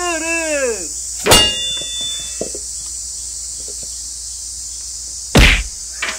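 Slapstick comedy sound effects. A wavering voice-like tone slides down and stops just under a second in. A sharp smack with a short ring follows a moment later, and a heavy thud comes near the end. A steady high insect drone runs underneath.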